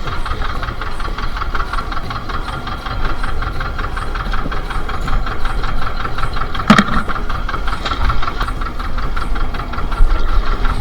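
Fishing boat's engine running steadily, with one sharp knock about seven seconds in.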